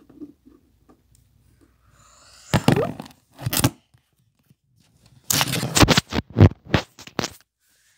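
Loud rubbing and scraping on the microphone of a handheld camera as it is moved and covered. The rubbing comes in two spells: about a second of it starting two and a half seconds in, then a longer run of rubs and knocks from about five to seven seconds.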